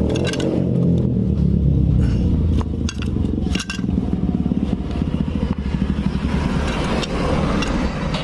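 A motorcycle engine running steadily, a low rumble with a fast pulse, mixed with light metallic clicks and scrapes from gears and clutch parts being handled.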